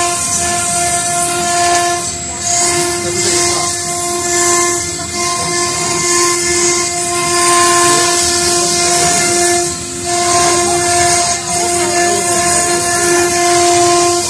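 Stone CNC router spindle running at speed as its cutter engraves marble: a steady high whine over a high hiss of cutting and coolant spray. The whine dips briefly about two seconds in and again about ten seconds in.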